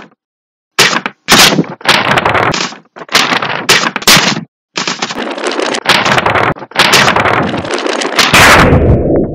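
A series of hard punch and hit sound effects: about ten sudden impacts, each with a short noisy tail, starting about a second in and coming every half-second to a second.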